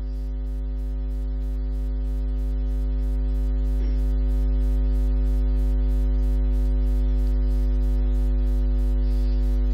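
Sound-system hum: a steady low electrical buzz with several held, unchanging tones and a faint even ticking about four times a second. It grows a little louder over the first few seconds, then holds.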